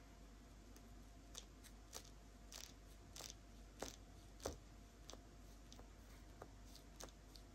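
The plastic back panel of a Google Pixel 6a flexing under repeated fingertip presses near its top edge, giving a faint crackle like foil with each press, about ten times, a little more than once a second. Something behind the panel is touching: the sign of a back that is not firmly seated.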